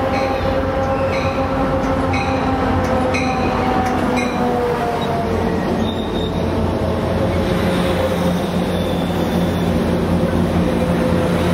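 Amtrak California passenger train with bilevel coaches rolling past close by. The wheels squeal in sustained tones that slowly drop in pitch, over the steady rumble of the cars on the rails.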